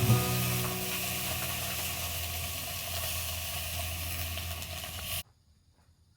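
A steady sizzling hiss over a low hum, cut off abruptly about five seconds in.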